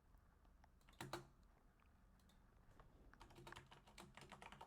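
Faint computer keyboard typing: a couple of keystrokes about a second in, then a quicker run of keystrokes over the last second and a half.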